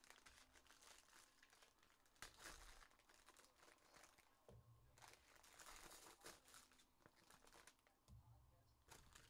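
Faint crinkling and tearing of a foil trading-card pack wrapper being ripped open. It comes in two main bursts of rustling with smaller crackles between them.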